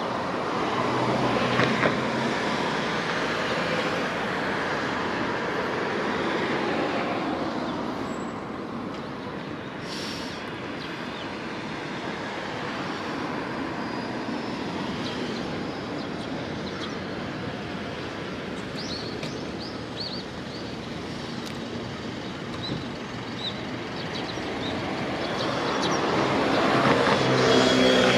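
Road traffic: cars passing on a nearby road, a rush of tyres and engines that swells near the start, eases off, then builds again near the end.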